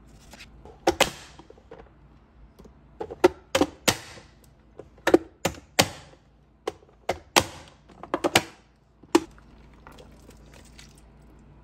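Ripe tomatoes being diced in a push-down plastic vegetable chopper: the lid is pressed down again and again, forcing the tomato through the dicing grid with about a dozen sharp clacks spread over eight or nine seconds.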